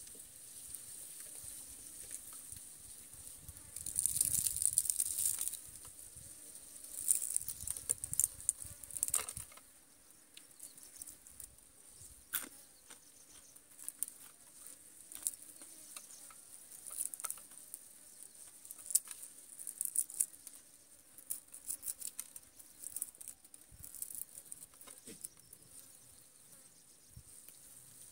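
Crunching and crackling of crisp fried dried fish being eaten and picked apart by hand, with louder bouts about four and eight seconds in and scattered clicks after. A steady high-pitched insect buzz runs underneath.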